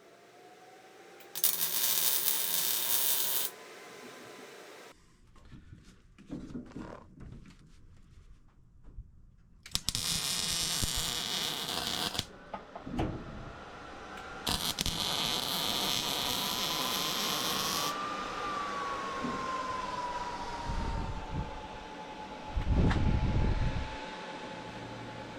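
Electric arc welding in several short bursts of a few seconds each, the arc giving a steady frying hiss, with a thin whine from the machine between and after the welds and a few low thumps near the end.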